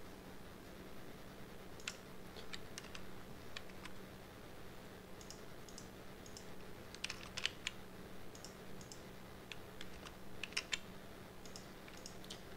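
Computer keyboard keys and mouse buttons clicking in scattered small groups, loudest about seven and about ten seconds in, over a faint steady electrical hum.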